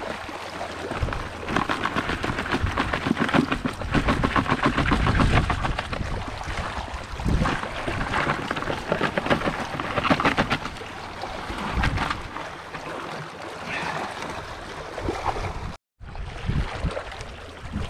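A bucketful of live signal crayfish being tipped and handled: dense runs of fine clicking and scrabbling from the shells, with water sloshing underneath. The sound drops out briefly near the end.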